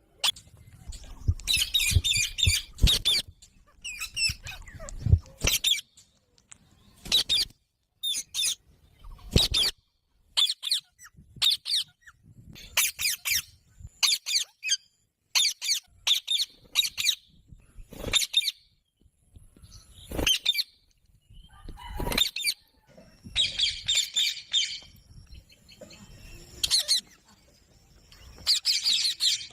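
Pet ringneck parakeet calling over and over: short, sharp, high squawks about once a second, broken by a few longer chattering runs. There are some low knocks in the first few seconds.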